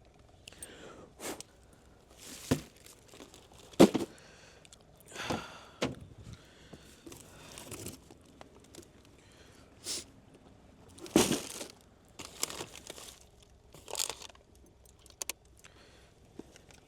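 Irregular handling noises: rustling of snack packaging with scattered clicks and knocks, as boxes and bags of snacks are picked up and moved.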